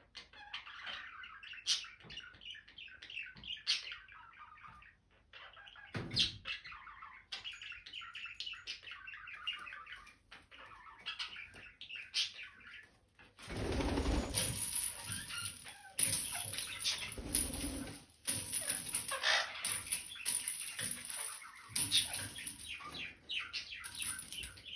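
Indian ringneck parrots chirping and chattering softly, with scattered knocks and scratches. About halfway through, a louder stretch of rustling, rattling and wing flapping sets in and runs on with short breaks.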